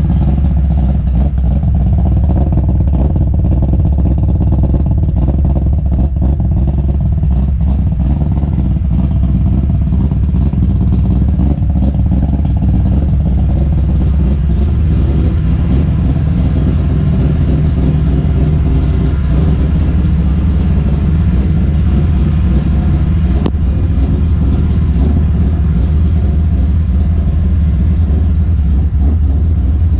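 Mazda 20B three-rotor rotary engine running steadily at a fast idle while it warms up.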